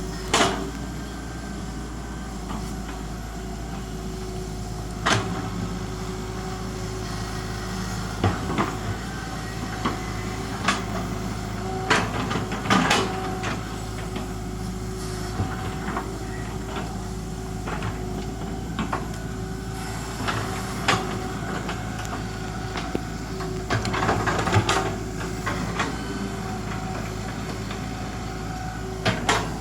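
Excavator's diesel engine running at a steady pitch, with a sharp knock or clank every few seconds from the working machine and a cluster of clatter over a couple of seconds near the end.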